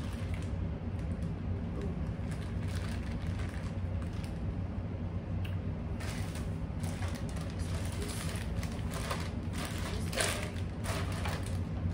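Thin plastic takeout bags crinkling and rustling as they are handled and opened, in irregular bursts that get busier in the second half. Under it runs a steady low hum from an air conditioner and a fan.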